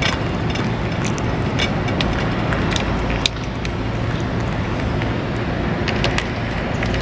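A cat eating soft fish flakes and paste from a metal dish close to the microphone: short, wet clicks of chewing and licking come every second or so over a steady low background rumble.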